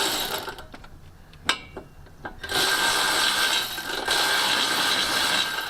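Milwaukee cordless power ratchet whirring: a short burst at the start, another brief one about a second and a half in, then a steady run of about three seconds. The tool is working hard enough to overheat; it is smoking right after.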